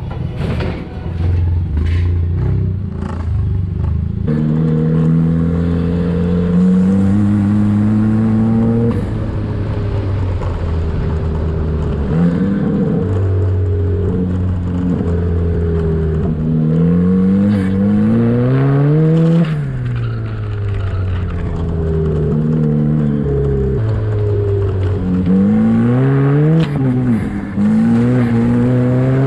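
Off-road buggy's engine being driven hard, its pitch climbing as it revs and dropping back at each gear change, over and over. There is a steep climb and drop about two-thirds of the way in and again near the end. A few sharp clicks come before the engine takes over about four seconds in.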